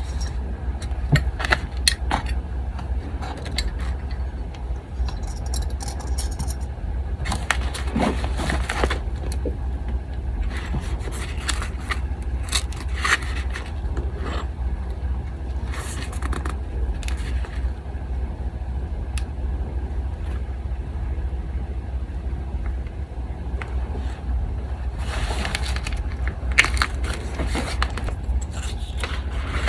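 Paper being handled: rustling and scraping in a few longer stretches, with scattered small clicks and taps. An electric fan hums steadily underneath throughout.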